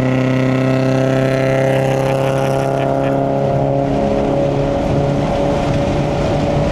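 A vehicle's engine and road noise at steady speed, a constant low hum with a held engine tone that fades about four seconds in.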